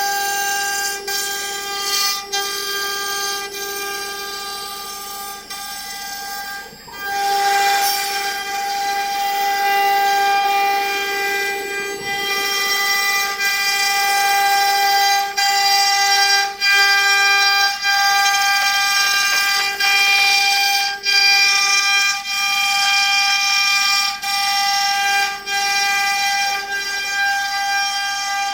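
CNC router spindle running with a steady high-pitched whine, dipping briefly now and then.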